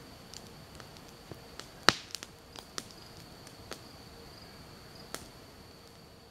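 Wood campfire crackling with scattered sharp pops, the loudest about two seconds in, over a steady high insect trill.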